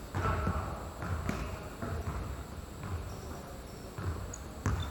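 A basketball bouncing, about two low thumps a second, with one sharper knock near the end.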